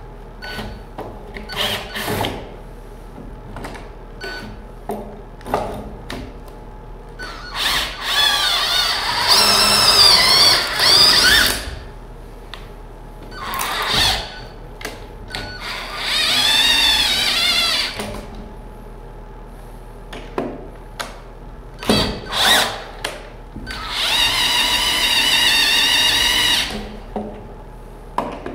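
Cordless drill with a lengthened bit boring holes through wooden wall studs. It runs in three spells of a few seconds each, the motor's whine wavering in pitch as the bit loads up in the wood. Short knocks and clicks fall between the spells.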